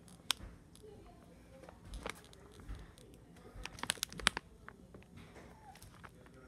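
Faint scattered clicks and taps, with a small cluster about four seconds in: handling noise from a handheld phone camera being carried and moved about.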